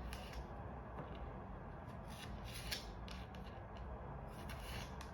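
Raw baby carrots being cut into slices: a handful of separate short cuts at irregular intervals.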